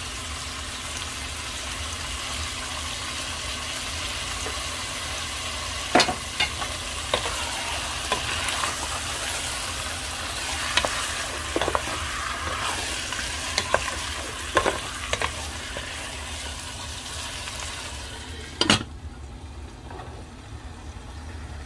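Chicken thighs with onion and garlic sizzling in hot oil in a pan, stirred now and then with a utensil that clicks and knocks against the pan. A louder knock comes about 19 seconds in, after which the sizzling turns much quieter.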